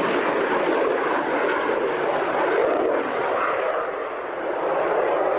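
Jet noise from a de Havilland Sea Vixen's twin Rolls-Royce Avon turbojets as the jet banks and climbs away in a display. It is a steady, loud rushing sound that dips a little past the middle and swells again near the end.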